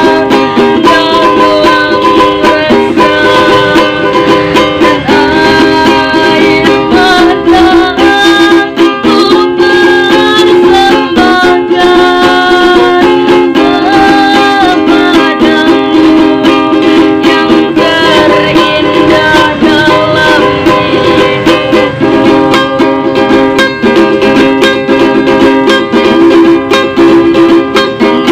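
A ukulele strummed as accompaniment to a young girl singing a slow pop song, her held notes sliding from one pitch to the next.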